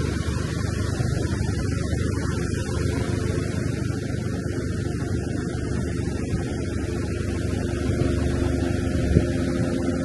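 Pacific surf breaking and washing up the sand, a steady low rumble. A faint drone with a few steady tones comes in during the second half, and there is a single light knock near the end.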